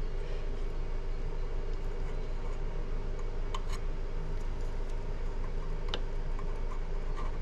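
A few faint, sharp metallic clicks as a small spring and pin are worked into a shotgun's action, over a steady low hum.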